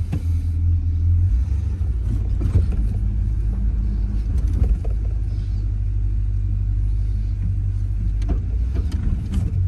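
1981 GMC pickup truck running with a steady low rumble, heard from inside the cab as it drives slowly on the first test run of its freshly installed TH350 automatic transmission. A couple of short clicks come near the end.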